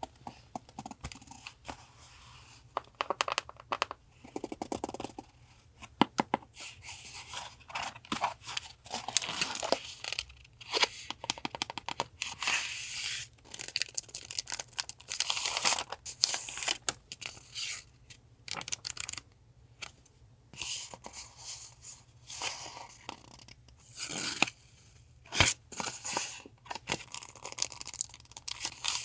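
Paper and packaging being handled and torn, with irregular rustles, crinkles and sharp crackles.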